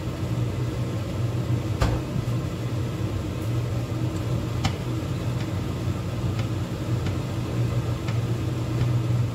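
Steady low mechanical hum from the kitchen, with two sharp knocks about two and five seconds in. Near the end come light knocks of a wooden spoon stirring thick coconut gravy in a metal pot.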